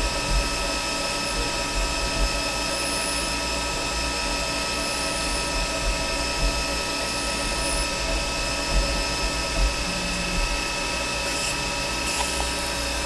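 CNC vertical milling machine drilling brass parts with a small drill at 3250 RPM in a deep-hole pecking cycle, under coolant. The spindle gives a steady multi-tone whine over a low running rumble, with occasional light clicks and a few faint, short high whirs.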